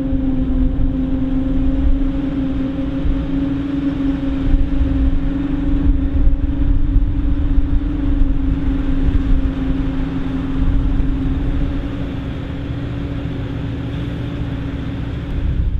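Krone Big X 780 self-propelled forage harvester running steadily under load while chopping corn and blowing silage out of its spout, a constant hum running through the rough drone of the machinery.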